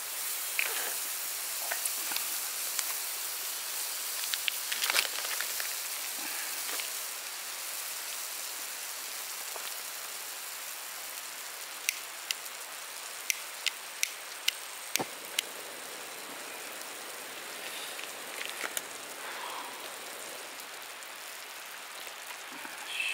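Butter sizzling steadily as it melts in a small hot iron frying pan, with a short run of sharp ticks a little past halfway.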